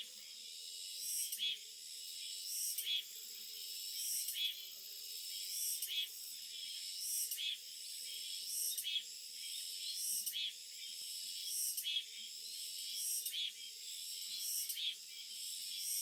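A high, hissy animal call repeating in a steady rhythm: each call swells in loudness and then cuts off sharply, about once every one and a half seconds.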